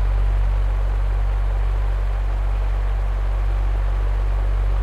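Recorded electric fan running steadily: a constant low motor hum under an even rush of air, played as a relaxation sound.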